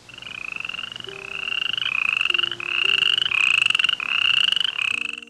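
An animal calling in about seven quick back-to-back trills. Each is a pulsed, buzzy call of under a second that rises slightly in pitch, and they grow louder toward the middle.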